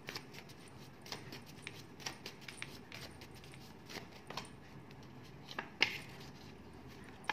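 Faint, irregular clicks and taps of paper cards being handled and laid down, with one sharper snap nearly six seconds in.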